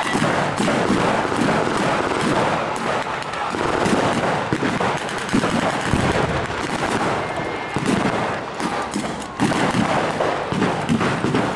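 Continuous small-arms fire from rifles and machine guns firing blanks in a WWII battle reenactment. Many shots overlap without a pause.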